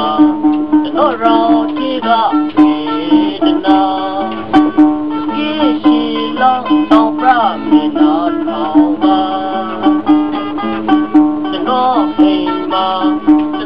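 Bowl-backed mandolin-type lute plucked in a folk tune: quick picked notes over a steady low note, with a bending, gliding melody line.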